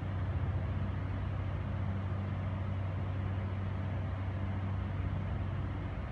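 Steady low mechanical hum under an even rushing noise.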